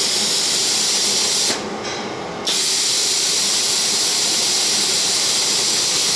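Automatic paint spray gun of a drum-type slider painting machine spraying with compressed air, giving a steady hiss. About a second and a half in, the hiss cuts out for about a second and then resumes: the timed one-second stop between spraying periods.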